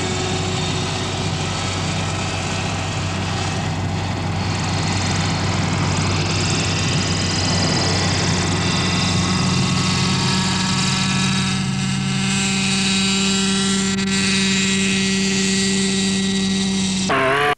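Radio-controlled model helicopter in flight, its small glow-fuel two-stroke engine and rotor running steadily at a high pitch that shifts a little now and then. The sound cuts off abruptly with a brief warble near the end.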